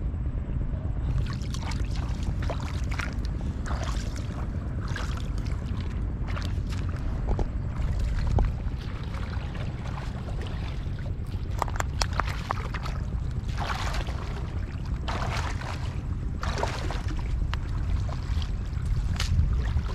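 Shallow lake water sloshing and splashing in short bursts every few seconds as someone wades and moves through it, over a steady low rumble.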